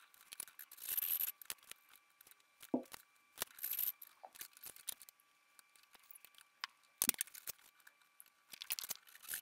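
Hand tools and wood pieces handled on a workbench: a handsaw picked up and a board moved, giving irregular scrapes, rubs and light clicks with no steady rhythm.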